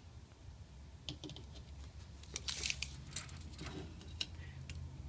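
Retractable tape measure being pulled out and laid along a fluorescent tube on a table: scattered light clicks and scrapes of the blade and case, with a brief rattle about two and a half seconds in, over a faint low hum.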